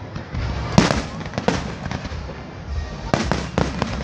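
Aerial fireworks bursting: a loud bang about a second in, a few scattered cracks, then a quick run of bangs near the end.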